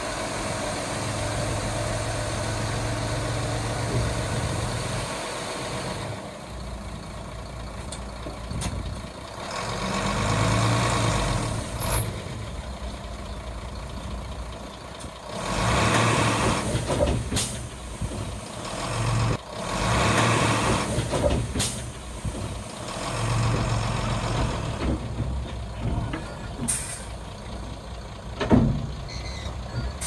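Heavy diesel earthmoving machinery working: a steady low engine note that swells into louder surges every few seconds as it takes load, with a few short, sharp sounds over it.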